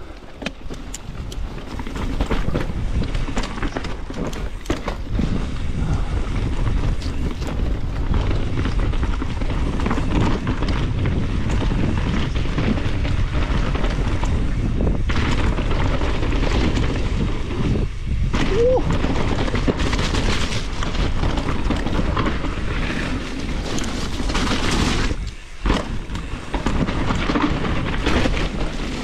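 Mountain bike descending rough singletrack at speed: a steady deep rumble of wind buffeting the action-camera microphone, dotted with rattles and knocks from the bike over roots and bumps. The rumble builds over the first two seconds and breaks off briefly twice, about 18 and 25 seconds in.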